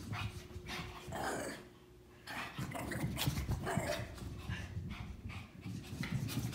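A Shih Tzu dashing in circles on carpet. After a short lull about two seconds in, there are quick, dense paw thuds and panting breaths.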